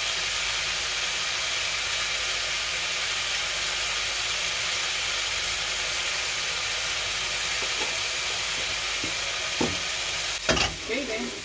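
Stinging nettle leaves stir-frying in a pan, a steady sizzle throughout. A few light ticks late on and one sharp knock near the end.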